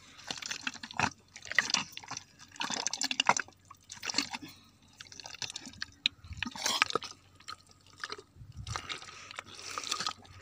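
Wet mud squelching and sucking as it is dug through by hand and trodden underfoot to get at a swamp eel's burrow, in irregular clusters of short wet clicks.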